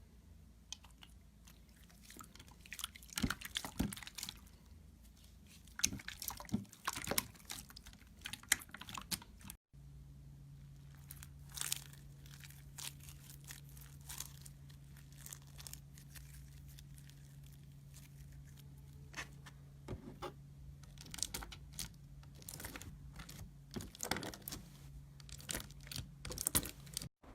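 Slime being squished and poked by hand, making irregular sticky crackling and popping clicks. About ten seconds in the clip cuts, and after that a steady low hum runs under the clicks.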